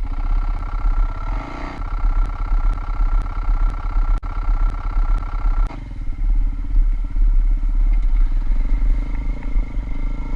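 Avantis 300 Pro motorcycle's single-cylinder 177 engine running with a knock in the engine, a rattle that the owner puts down to something going wrong inside it at about 110 engine hours. Faint regular ticks come about twice a second, and the engine note changes about six seconds in.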